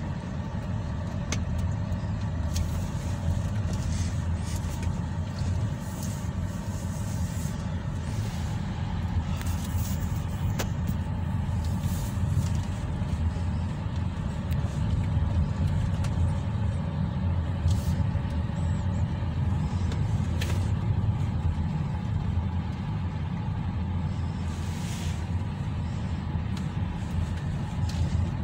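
Steady low vehicle rumble heard from inside a car cabin, with faint steady tones above it and scattered faint clicks.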